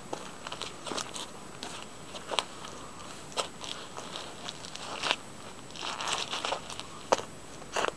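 Work boots stepping down on a pile of dry, brittle peelings on a rubber tray, crushing them with sharp crackling crunches. The crunches come one at a time every second or so, with a denser run of crackling around six seconds in.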